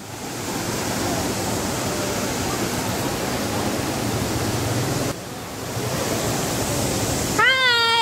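Steady rushing of a large waterfall in spate, a wide, even noise with a brief dip in level about five seconds in. Near the end a high-pitched voice briefly cuts in over it.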